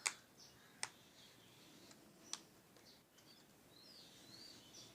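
Three sharp plastic clicks, at the start, about a second in and about two seconds later, as the snap-on back cover of a Jio Phone is prised off its clips. Faint bird chirps in the background.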